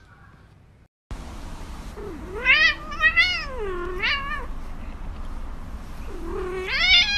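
Domestic cat meowing in long, wavering calls: a run of three calls starting about two seconds in, then another drawn-out call near the end.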